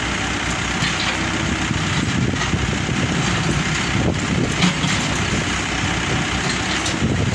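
Truck engine running steadily, with a few light knocks.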